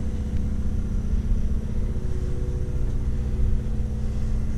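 A steady low mechanical hum with a rumble under it, unchanging throughout, like machinery or an engine running without a break.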